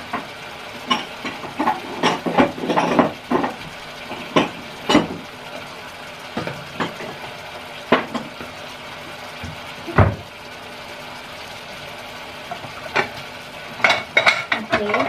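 A cooking utensil knocking and scraping against a pan of pork and spices, in scattered clinks and knocks. There is a heavier knock about ten seconds in, and the clatter comes thicker near the end as stirring gets going.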